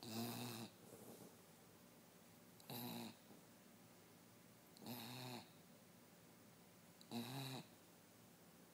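West Highland white terrier snoring: four short snores, each about half a second long, coming roughly every two seconds.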